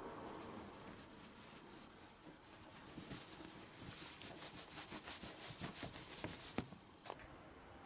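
Terry towel rubbing a small dog's damp fur and legs: faint rustling, then a run of quick scrubbing strokes in the second half that stop about seven seconds in.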